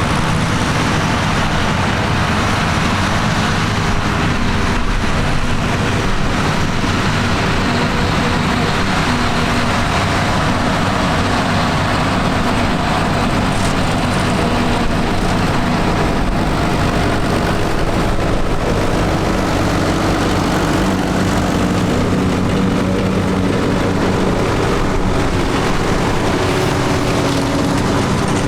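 Vintage tractor engine running steadily under a dense mechanical clatter, its note shifting slightly in pitch in the later part.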